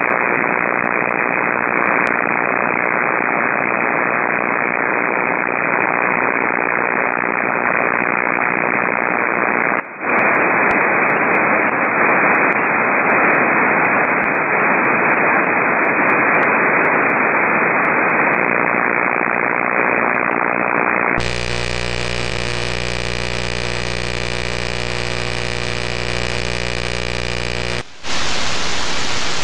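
Flex 5000A transceiver's receiver audio on 6 metres, a steady loud hiss of band noise held inside a narrow voice filter. About two-thirds of the way through it changes to a wider, buzzing noise with many steady tones, typical of heavy power line noise, and it breaks off briefly twice.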